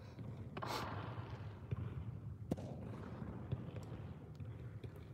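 Soccer balls being dribbled on artificial turf: soft ball touches and scuffs of footsteps, with one sharper tap of foot on ball about two and a half seconds in, over a low steady hum.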